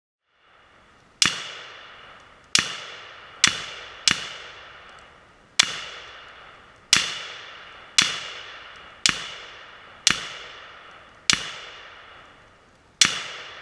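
A string of eleven rifle shots fired at uneven intervals of about a second, each followed by a short echoing tail, over a faint steady high hum.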